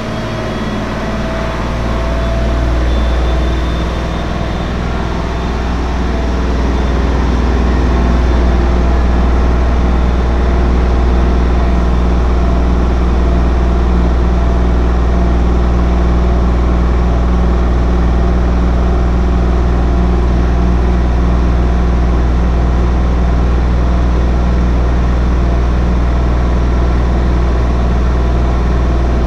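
Washing machine spinning: the drum's motor whine climbs in pitch and the sound grows louder for the first several seconds as it spins up, then holds as a steady high-speed spin hum.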